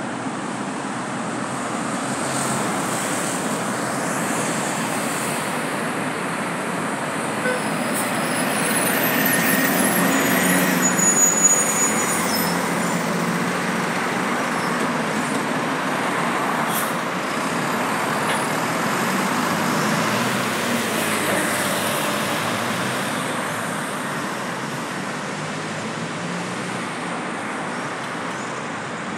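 A city bus driving past close by and pulling away down the avenue, loudest about a third of the way in, over steady road traffic.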